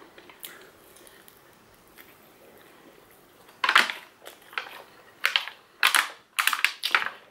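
Aluminium foil takeaway-tray lid crinkling and crackling in the hands. The crackles come in a run of sharp bursts from about three and a half seconds in.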